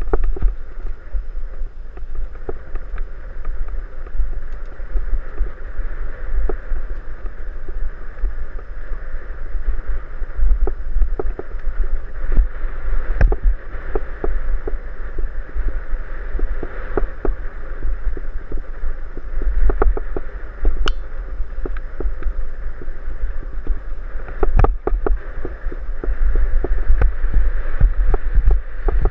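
Mountain bike ride on a bumpy dirt trail heard from a helmet camera: steady deep wind rumble on the microphone with tyre and trail noise, broken by frequent short knocks and rattles as the bike goes over bumps.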